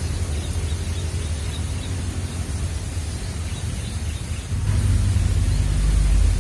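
A low, steady engine-like drone that gets louder about four and a half seconds in.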